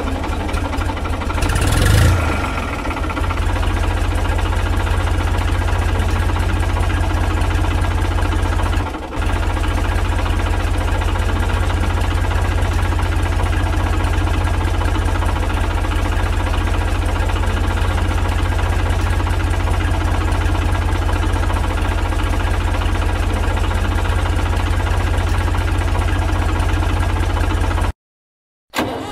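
Tractor engine running steadily at idle, with a brief louder burst about two seconds in. The sound drops out for under a second near the end.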